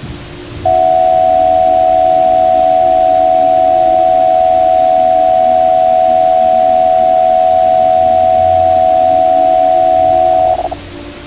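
Emergency Alert System-style attention signal: two steady tones sounding together, loud and unchanging for about ten seconds. It starts just under a second in and cuts off near the end, over a low steady hum.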